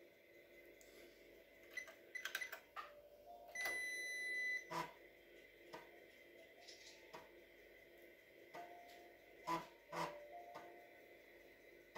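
Keys clicking on a Juku E5101 computer keyboard as a short command is typed, followed by one steady electronic beep lasting about a second, then a few more separate clicks.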